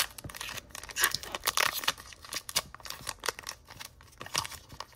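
Foil wrapper of a Pokémon trading card booster pack crinkling and tearing as it is ripped open by hand: an irregular run of sharp crackles and rips.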